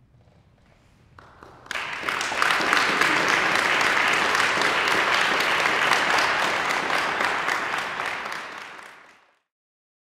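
Audience applauding. After a second or so of near quiet, the clapping starts and swells quickly, holds steady, then fades out about nine seconds in.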